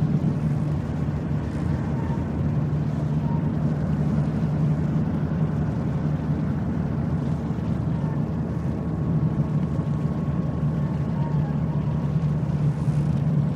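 Fishing-port ambience dominated by a steady low engine drone that does not change in pitch, with faint brief higher sounds now and then over it.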